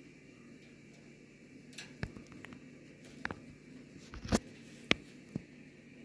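An African grey parrot's beak and claws tapping and scratching close to the phone: about five sharp clicks spread over the second half, the loudest a little past the middle, over a faint steady hum.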